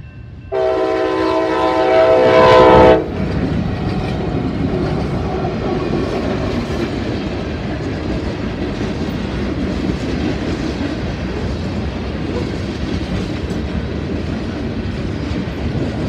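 Freight locomotive air horn sounding one long chord of several notes, starting about half a second in and growing louder for about two and a half seconds. Then the locomotives and coal train cars pass close by with a loud, steady rolling rumble.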